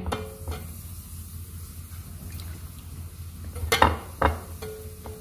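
Hands pressing and turning a chicken fillet in a bowl of dry flour for a double coating, a soft rustling with a few sharp knocks against the bowl a little under four seconds in, the loudest sounds. A steady low hum runs underneath.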